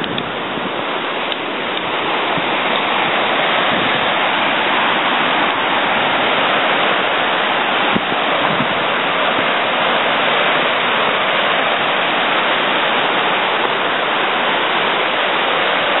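Steady rushing of white water tumbling over rocks where spring water from an underground flow wells up into a stream, growing a little louder over the first few seconds.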